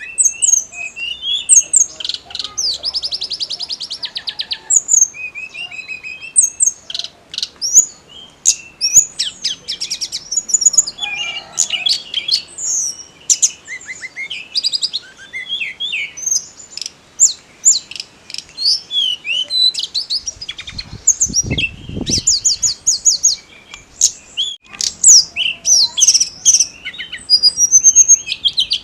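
Tledekan gunung (hill blue flycatcher) singing vigorously: a rapid run of varied sweeping whistles, chirps and trills, including a fast buzzy trill a few seconds in. A brief low rumble comes about two-thirds of the way through.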